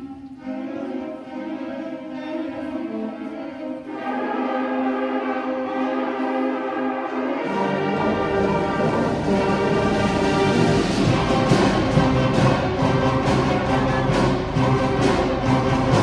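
A school concert band of brass and woodwinds playing. A few held notes open it, more instruments join about four seconds in, and the low brass and percussion come in around eight seconds, building to the full band with sharp percussion strokes.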